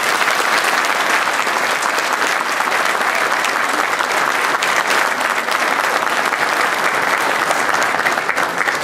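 Audience applauding: a dense, steady clatter of many hands clapping at once, easing slightly near the end.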